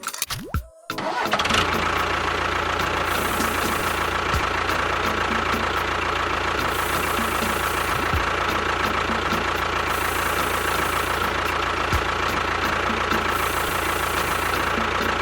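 A small motor starts about a second in and runs steadily with a constant whine.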